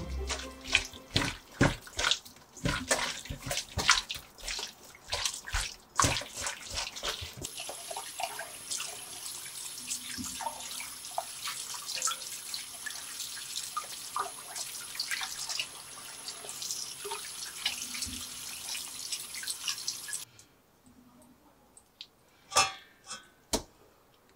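Webfoot octopus being scrubbed by hand in a stainless steel bowl: a quick run of rubbing and knocking strokes against the metal. Then a kitchen tap runs steadily into the sink with scattered clicks of handling, and cuts off suddenly. A few sharp wet clicks follow as the octopus is squeezed over a metal strainer.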